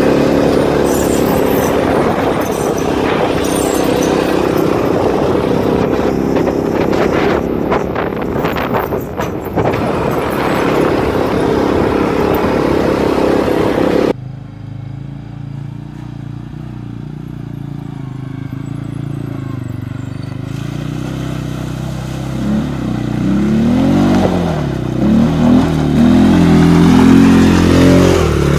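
ATV engine running on a rough dirt trail, mixed with a dense noisy rush. About halfway through the level drops suddenly and the engine note runs steadier and quieter. Near the end the engine revs up and down repeatedly and grows louder.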